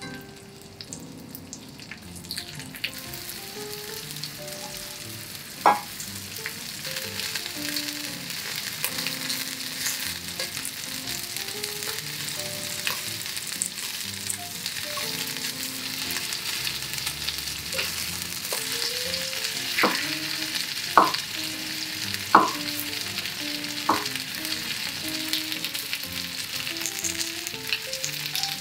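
Chicken thigh pieces sizzling as they fry in butter in a cast-iron skillet. The sizzle starts about two seconds in and grows steadily, and there are a few sharp clicks of wooden chopsticks against the pan as the pieces are placed and turned.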